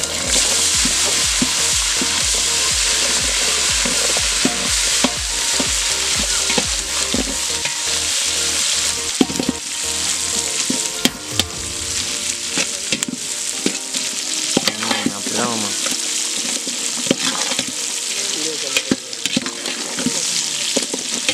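Sliced shallots dropped into hot oil with dried red chillies and curry leaves in a large aluminium pot, frying with a loud sizzle that is strongest in the first several seconds. A perforated metal ladle stirs the mix, scraping and clicking against the pot.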